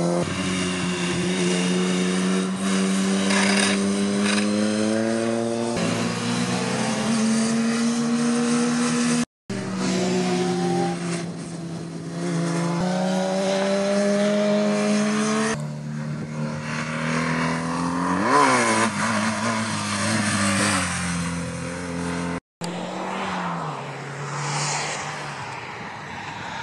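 Sport motorcycle engines revving hard as the bikes accelerate out of corners, the pitch climbing through each gear and dropping at every upshift, in a string of pass-bys. About 18 seconds in, one bike passes close with a sharp rise and fall in pitch. The sound breaks off abruptly twice.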